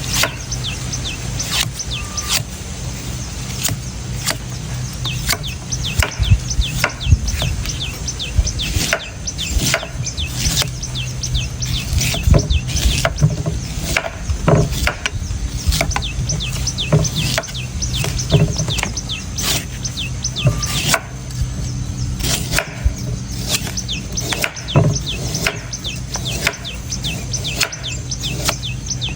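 A knife chopping into coconut: hard, irregular strikes, often one or two a second, with birds chirping throughout.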